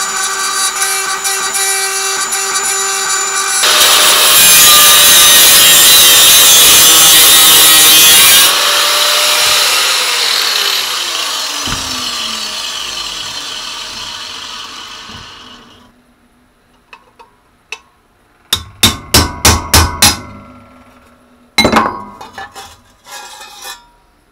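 A Dremel rotary tool whines as it grinds at the welds inside a steel scooter expansion chamber. Then much louder grinding and cutting on the metal, which stops about eight seconds in, the tool's whine falling as it spins down. Later comes a quick run of about seven hammer blows on a chisel to knock the welds loose, then one more blow and a few clinks of metal.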